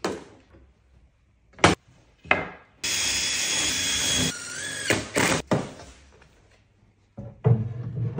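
A couple of sharp clicks, then a cordless drill-driver runs into a white board for about two seconds, its pitch dropping partway through as it loads up.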